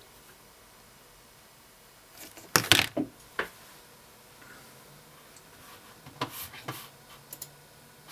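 A few sharp clicks and knocks, strongest about two and a half to three and a half seconds in, then lighter clicks near the end: a smartphone being handled and set down on a wooden desk.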